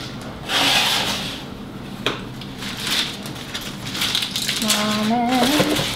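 Wet, crumpled parchment paper crinkling and rustling as it is pulled open and stretched, with a sharp click about two seconds in. A short gliding vocal sound comes near the end.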